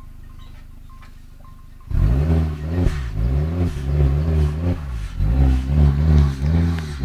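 Volkswagen Polo 9N3 GTI's turbocharged 1.8T four-cylinder on its stock exhaust, idling low and steady. About two seconds in it is suddenly revved hard in a run of quick throttle blips, its pitch rising and falling over and over.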